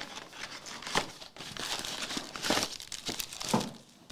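Plastic wrapping crinkling and tearing as a box or packs of Select La Liga trading cards are opened by hand, in irregular crackles with a few sharper rips.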